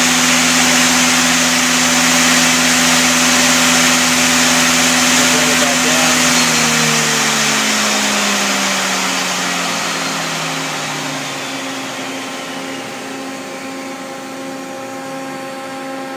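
Spindle and hydraulic chuck of a 1997 Mazak Quick Turn 20 CNC lathe running steadily at about 2,900 RPM, then spinning down from about six seconds in, its whine falling in pitch and fading. A steady hum is left near the end. The spindle is running quietly, with no bearing noise.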